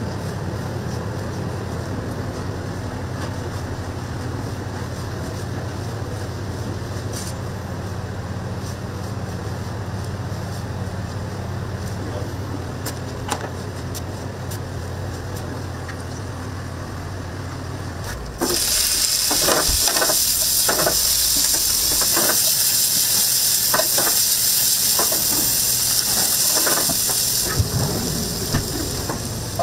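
A steady low hum. About two-thirds of the way in, a loud sizzle starts suddenly as lobster meat fries in a pan, with metal tongs clicking against the pan. The sizzle eases near the end.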